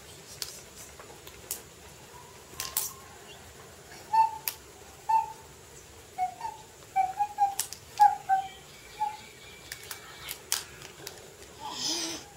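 Pieces of plastic toy train track clacking and tapping on a tiled floor as a toddler handles them: scattered single knocks throughout. Between about four and nine seconds in, a quick string of short high chirps runs alongside the knocks.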